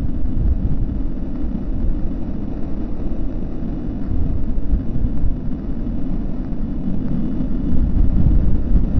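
Steady low rumbling noise with no clear pitch, swelling a little now and then.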